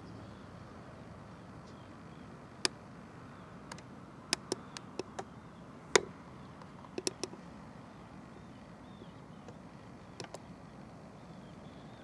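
Quiet lakeside outdoor ambience with faint, repeated high chirps, broken by a scatter of sharp clicks and taps, bunched in the middle and twice more near the end.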